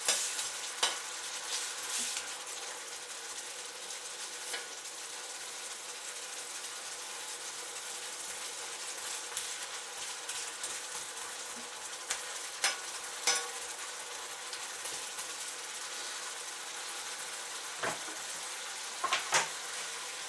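Onion rings sizzling steadily in hot oil in a wok, with scattered sharp clicks of a utensil against the wok as they are stirred, a few of them louder near the end.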